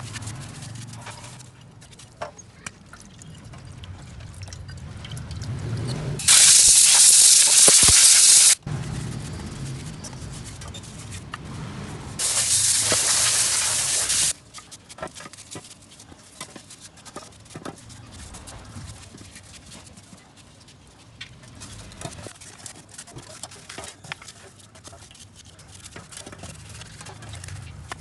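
Two loud hissing sprays, each about two seconds long and stopping abruptly, about four seconds apart, as grime is cleaned off motorcycle starter-generator parts. Between the sprays, light clinks of metal parts and tools being handled.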